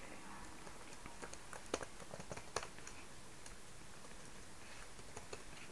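Typing on a computer keyboard: faint, irregular keystrokes, closest together in the first three seconds and sparser after.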